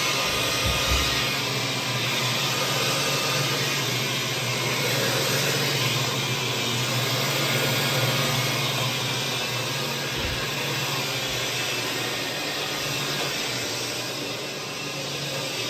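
Carpet-cleaning equipment running on carpet: a steady loud suction hiss with a low hum underneath and a couple of brief low thumps.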